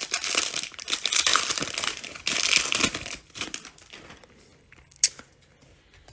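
Foil wrapper of a Panini Mosaic football card pack crinkling loudly as it is torn open, for about three seconds. Then comes quieter handling of the cards, with one sharp click about five seconds in.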